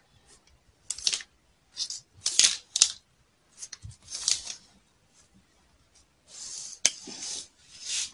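Pattern paper rustling and crinkling as hands lay and slide a flexible tape measure along the drafted armhole line, in a string of short scratchy bursts, with a sharp click about seven seconds in.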